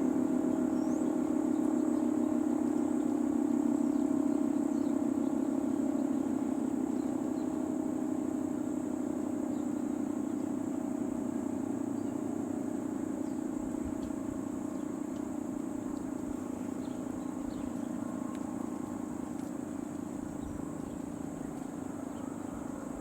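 Federal Signal 2T22 dual-tone outdoor warning siren winding down: a low steady drone whose pitch sags a little as it slowly gets quieter.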